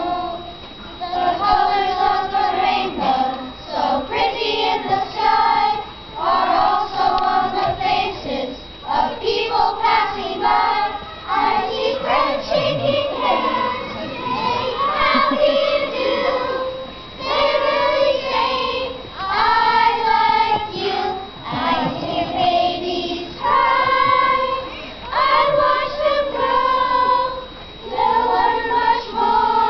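A children's choir of fourth-graders singing together in sung phrases a few seconds long, with short breaks for breath between them.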